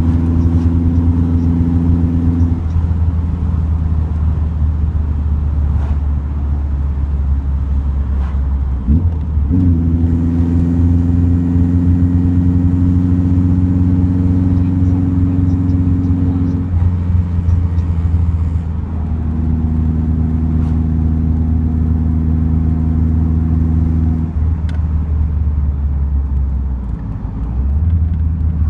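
Ford Capri's custom stainless steel exhaust while driving: a steady pitched exhaust drone under throttle over a deep constant rumble. The drone drops away and returns several times, with a short break about nine seconds in.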